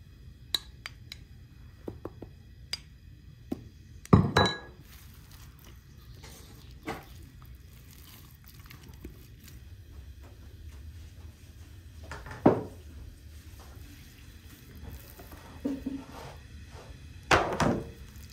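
Kitchen handling sounds: scattered knocks and clinks of a glass mixing bowl and dishes on a wooden table, with louder thuds about four seconds in, about twelve seconds in and near the end.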